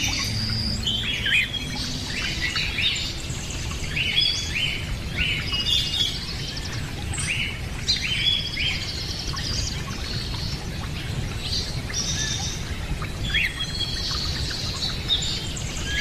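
Many birds chirping and calling: short high calls overlapping one after another over a steady low rumble, like a forest bird chorus.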